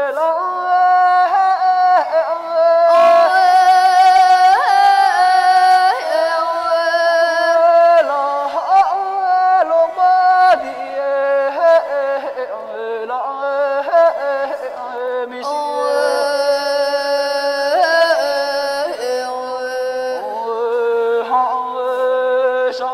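A high solo voice singing Tibetan opera (lhamo), holding long notes that waver and slide in ornamented turns from one pitch to the next.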